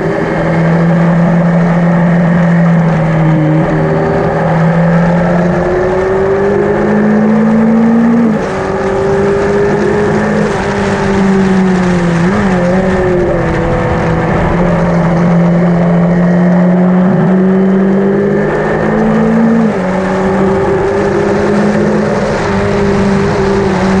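Yamaha XJ900N inline-four motorcycle engine running hard, its note rising and falling with the throttle. The pitch climbs and then drops sharply twice, about a third of the way through and again past three-quarters, like gear changes or rolling off the throttle.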